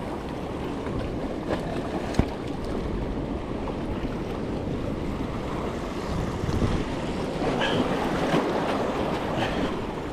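Small waves washing and lapping against the rocks of a jetty, with wind buffeting the microphone. There is a single sharp click about two seconds in.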